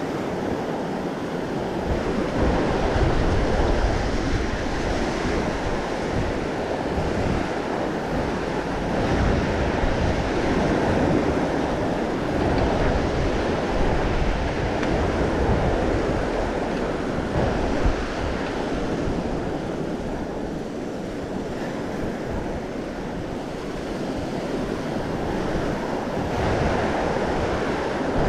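Ocean surf breaking steadily, with wind buffeting the microphone in an irregular low rumble.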